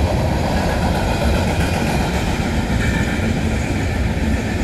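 A train running past, a steady loud rumble of wheels on rails with a few faint squeals over it.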